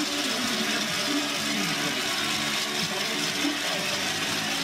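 Crowd of spectators cheering and shouting along the ski course, a steady mass of voices with single shouts rising and falling through it.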